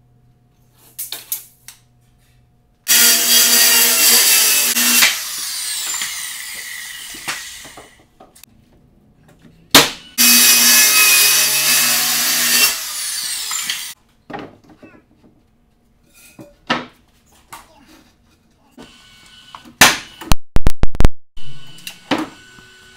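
Corded power saw cutting plywood in two passes of a few seconds each. The blade whines down in falling pitch as each cut ends. A quick run of five or six sharp cracks from a power tool comes near the end.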